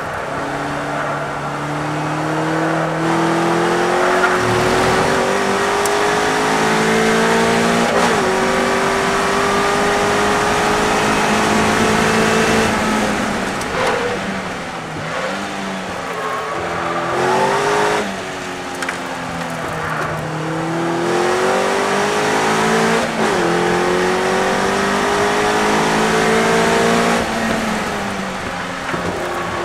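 Westfield race car engine heard from the open cockpit at racing speed, climbing in pitch through the gears with a sudden drop at each upshift. Partway through, the revs fall and rise in quick blips as the driver brakes and shifts down, then the engine pulls up through the gears again, with wind rushing over the car.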